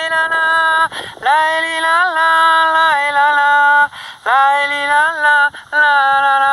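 Song with a voice singing long held 'la-la-la' notes, with short breaks between phrases.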